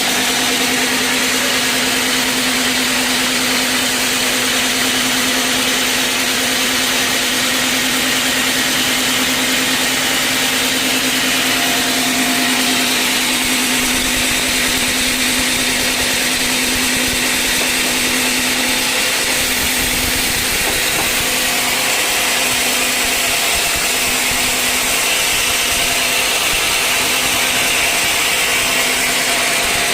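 Sawmill saw running steadily through a log, a constant hum under an even hiss.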